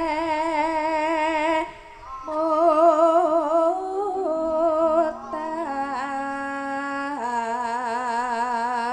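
A woman's voice singing slow, long held notes with a wide vibrato, in the style of a Javanese sinden. There is a short break about two seconds in, and the line settles onto a lower held note near the end.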